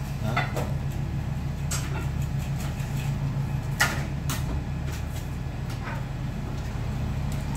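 Ramen kitchen at work: a steady low hum of kitchen equipment, with scattered clinks and clanks of metal pots and utensils, the loudest about four seconds in.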